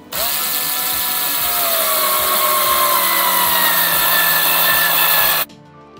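Small cordless electric screwdriver driving a mounting screw into a wall plate, its motor whine sinking slowly in pitch as it runs for about five seconds, then cutting off suddenly.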